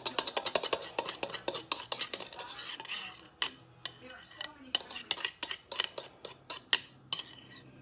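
A metal spoon scraping against the inside of a cup to empty it into a bowl of batter. There is a fast run of scrapes for about three seconds, then slower separate scrapes and taps.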